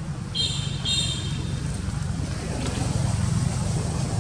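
A steady low motor rumble, like a nearby engine running, swells slightly in the second half. Two short high-pitched chirps come about half a second apart near the start.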